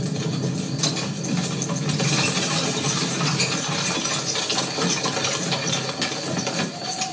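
Engine running steadily, with a light rattle over it.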